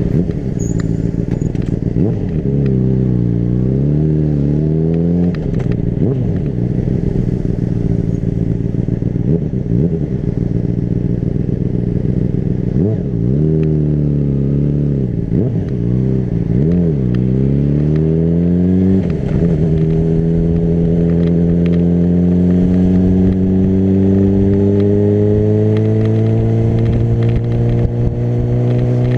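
Honda CBR600RR inline-four engine under way on the road, its pitch dipping and climbing back several times as the rider rolls off and on the throttle. From about two-thirds of the way through it pulls in one long, steady rise in pitch.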